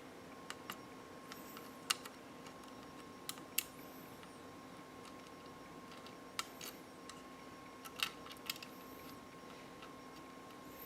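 Small plastic model parts clicking and tapping as a snap-fit airliner model's landing gear is handled and pressed into place: scattered sharp clicks at an irregular pace, a few louder than the rest, over a faint steady hum.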